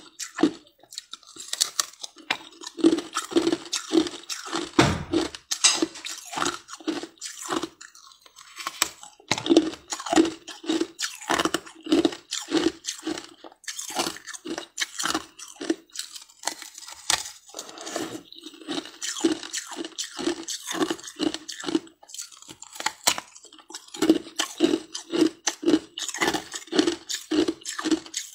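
Chunks of ice crunched and chewed close to the microphone: a steady run of crisp crunches, about three a second, with a few louder bites cracking off pieces.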